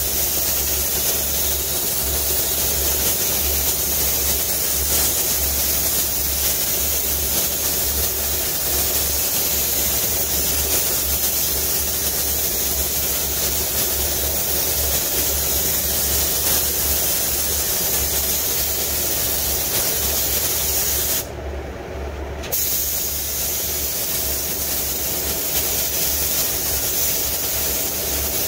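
Gravity-feed paint spray gun hissing steadily as it lays down a wet second coat of clear, with one short pause about three-quarters through when the trigger is let off. A low steady hum runs underneath.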